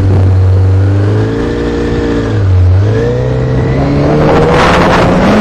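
Snowmobile engine running under throttle; its pitch sags twice and then climbs steadily as the sled accelerates. A rushing hiss builds near the end.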